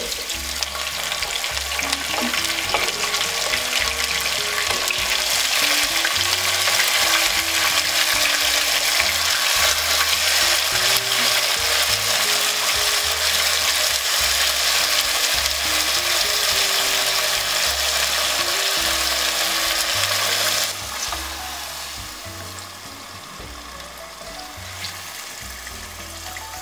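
Hot vegetable oil and fried onions sizzling in a pot as black mbongo spice paste with fish is scraped in and stirred with a wooden spoon. The sizzle drops suddenly to a quieter level near the end.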